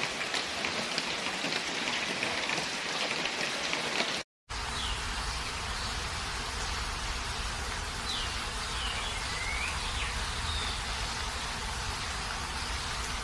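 Steady rain falling, an even hiss. It cuts out briefly about four seconds in, then carries on with a low rumble underneath and a few high chirps.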